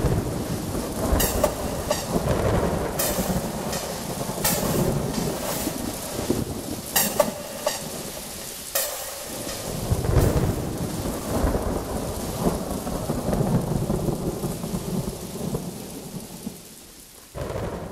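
Steady rain with rumbles and cracks of thunder, fading out near the end.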